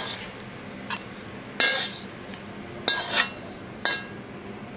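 Metal wok ladle clinking against a ceramic plate and the wok as egg fried rice is scooped out: four or five sharp clinks about a second apart, some ringing briefly.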